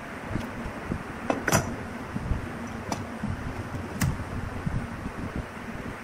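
Steel bar clamps being adjusted and tightened by hand, giving a few sharp metallic clicks and clinks, the loudest about a second and a half in, over a steady low background noise.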